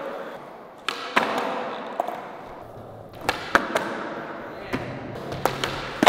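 Skateboards rolling on a smooth concrete floor, the wheels hissing, with several sharp clacks of tails popping and boards slapping down on flatground.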